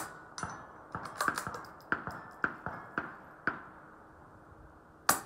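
Suppressed CZ 457 .22LR rifle fired at the start, then a run of sharp metallic clicks as the bolt is worked, and a second, louder suppressed shot about five seconds in.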